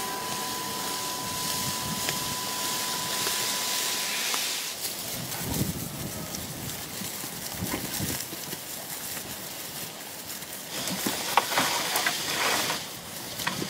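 Freshly cut leafy tree branches rustling and crackling as they are dragged over a wooden fence and handled, with a steady hiss in the first few seconds. The crackling is thickest near the end, as sheep push into the branches and tug at the leaves.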